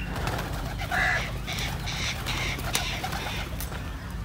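Crows cawing several times in quick succession, over a steady low hum.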